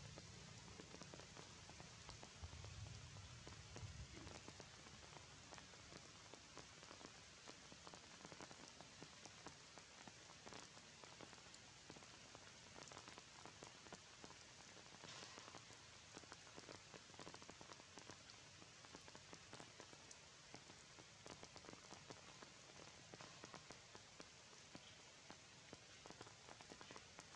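Faint, steady rain falling in the tree canopy, with many small drop ticks, and a low rumble during the first few seconds.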